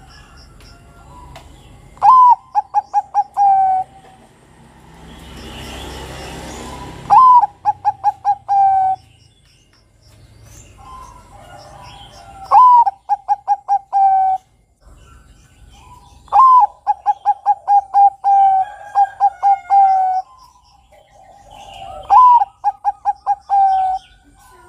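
Bangkok-strain zebra dove (perkutut) singing its cooing song five times, about every five seconds: each phrase opens with a rising-then-falling note, runs into a quick string of short staccato coos, and ends on a held note.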